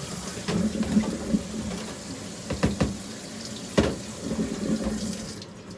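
Kitchen faucet running into a sink, with a few knocks of a bowl against the sink; the water shuts off near the end.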